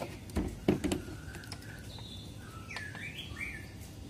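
A few sharp clicks and knocks from wiring connectors being handled, then several short chirps from small birds.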